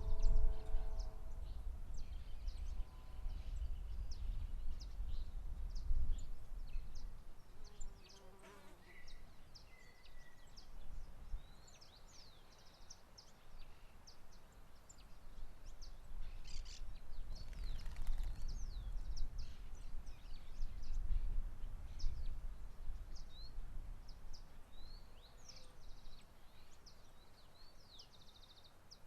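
Wind buffeting the microphone in uneven gusts, with many small birds chirping steadily over it. A brief insect-like buzz passes near the start.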